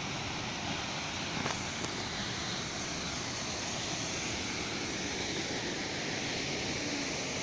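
Steady rushing of a waterfall and the rocky stream below it.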